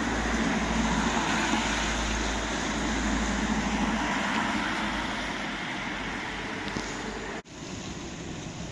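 A car driving past on a wet street, its tyres hissing on the asphalt over a low engine rumble that fades out a little after halfway. The sound cuts off suddenly near the end.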